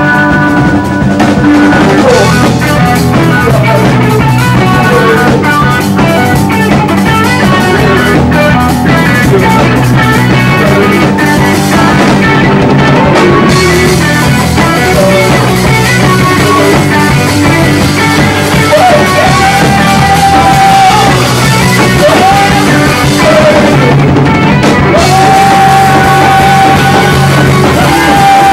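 Live rock band playing loud, with electric guitar, keyboard and drum kit, and a singer into a microphone; long held vocal notes come in the second half.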